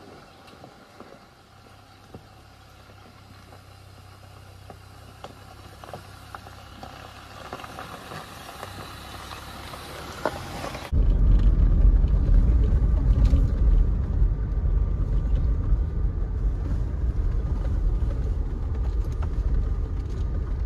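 A Jeep Gladiator driving. It is fairly quiet at first, with a faint steady hum, and slowly grows louder. About halfway through it cuts abruptly to a loud, low rumble of driving.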